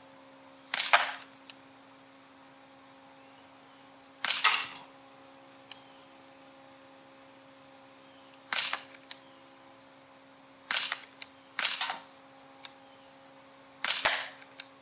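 Gamo P-430 CO2 air pistol firing six single shots a few seconds apart, each a sharp pop with a short tail. Several shots are followed by a faint tick or two.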